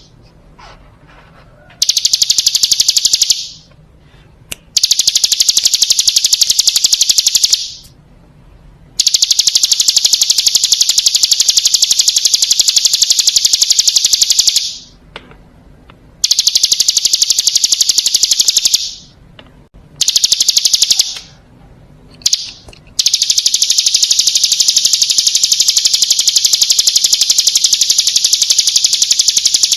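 Ciblek gunung (hill prinia) singing its 'ngebren' song: a loud, very fast, high-pitched rattling trill delivered in bouts of one to six seconds with short breaks between them, the longest bout running on near the end.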